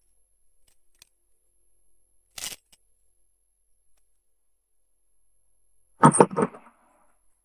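Rope with a metal chain set down on a table: a quick run of four or five clanks about six seconds in, the loudest thing here. Before it come a short scrape of handling about two and a half seconds in and a few faint clicks.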